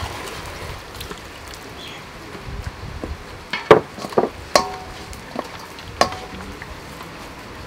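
A few seconds of low background, then a cluster of sharp knocks and clinks, about seven over two and a half seconds, as a clay pot and wooden spoon knock against stainless steel mixing bowls; a couple leave a short metallic ring.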